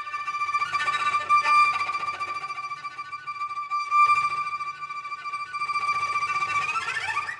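Instrumental music led by a solo cello: a high note held for a long time while lower notes move beneath it, then a quick upward run of notes near the end.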